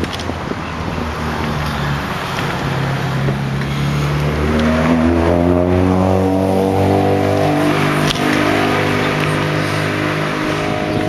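Motor vehicle engine accelerating: its pitch climbs for a few seconds from about a third of the way in, then holds steady, over a rushing haze of wind and road noise.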